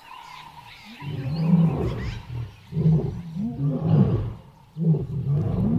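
Lion roaring: a string of deep roars and grunts in quick succession, starting about a second in.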